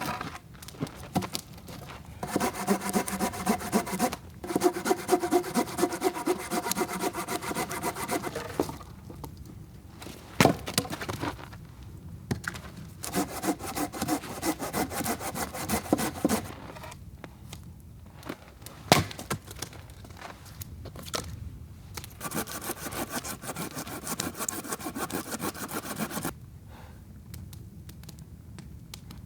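Hand saw cutting through firewood in three bouts of quick back-and-forth strokes, with pauses between them and a couple of sharp wooden knocks.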